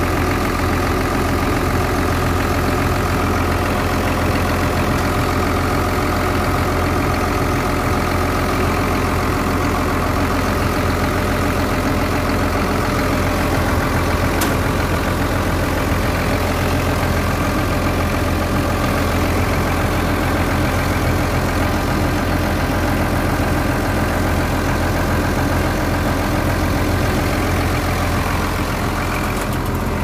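Cat 320D2 excavator's diesel engine idling steadily.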